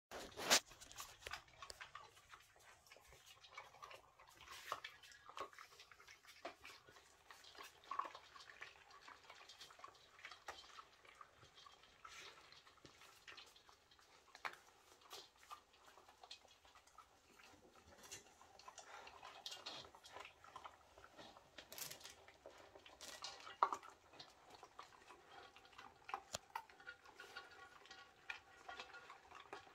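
Several dogs and a cat eating dry kibble from a shared bowl: faint, irregular crunching and clicking of the food, with pieces knocking about in the bowl.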